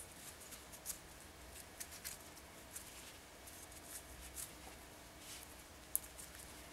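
Faint rustling and light ticks of macrame threads being handled and pulled through while a knot is tied, with one sharper click about six seconds in.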